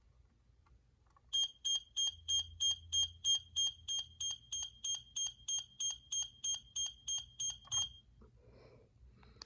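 First-generation American Sensors CO800 plug-in carbon monoxide alarm sounding on test: a run of about twenty shrill, evenly spaced beeps, about three a second, starting about a second in and stopping about two seconds before the end.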